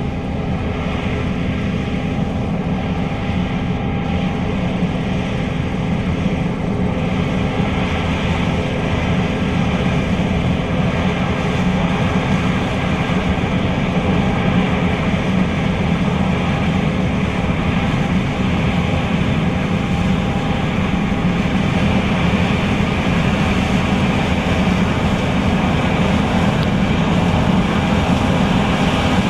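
John Deere S660 combine running steadily while harvesting soybeans: a loud, even drone of engine and threshing machinery, growing slightly louder toward the end.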